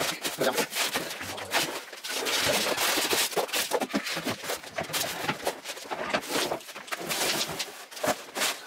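Packing material being pulled off a new desk by hand: dense crinkling and rustling of foam, paper and plastic wrapping, with scattered scrapes and light knocks on cardboard.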